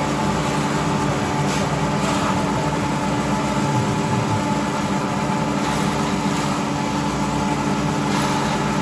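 Several engine-driven grass choppers running together at a steady speed, cutting green fodder as it is fed in.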